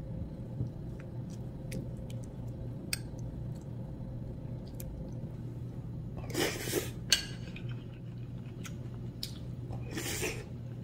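A metal spoon clinking and scraping lightly in a ceramic soup bowl, with two short slurps of broth from the spoon, one about six seconds in and one near the end.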